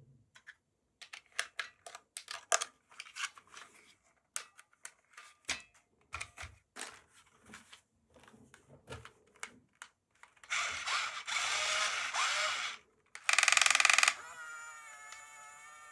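Small clicks and taps of plastic toy parts being handled, then about ten seconds in a toy mechanism starts up with a steady whir, followed by a louder burst and a buzzing hum with a wavering pitch.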